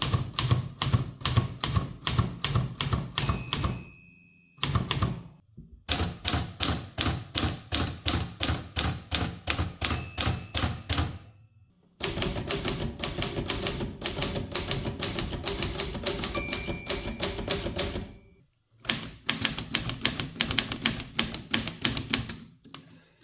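Manual typewriters being typed on, the type bars striking the platen in quick, even clatter of about three to four strokes a second, in several short runs from different machines separated by brief pauses. Now and then the little margin bell dings, ringing on for about a second.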